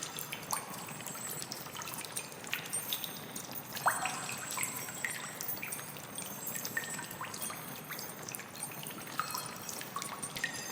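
Water trickling and dripping, with a steady hiss and many small, scattered pitched plinks. One plink about four seconds in is louder than the rest.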